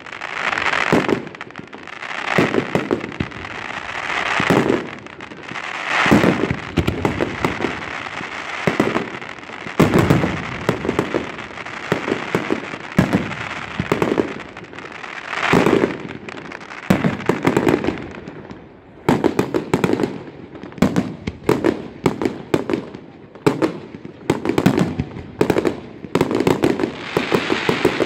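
Aerial fireworks display: shells bursting one after another in a steady barrage of sharp bangs, with dense crackling between them.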